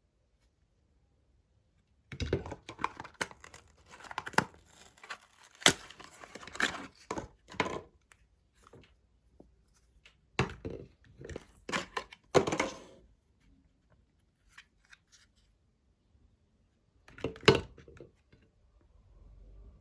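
Toothpaste packaging crinkling and tearing, in irregular bursts of crackles and snaps; the sounds start about two seconds in, continue on and off to about two-thirds through, and there is one last short burst near the end.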